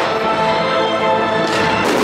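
Music playing steadily, with two sharp firework bangs about a second and a half in, just as aerial shells burst.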